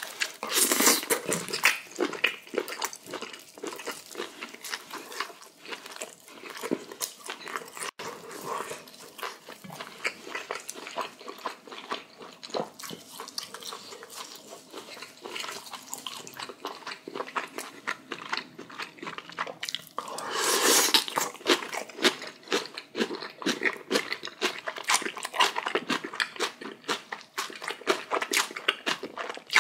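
Close-miked chewing and crunching of kimchi with boiled pork: a rapid, irregular run of crisp, wet mouth clicks, with a louder, denser stretch of crunching about twenty seconds in.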